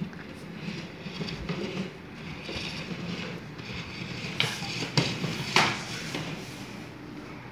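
Hard plastic wheels of a baby's push-along walker toy rolling and rattling over a hardwood floor, with three sharp plastic clacks a little past the middle.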